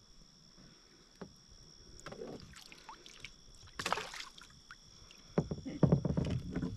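Water and hull sounds from a fishing kayak: a short splash about four seconds in, as a caught bass is let go over the side, then a run of knocks and thumps against the kayak near the end.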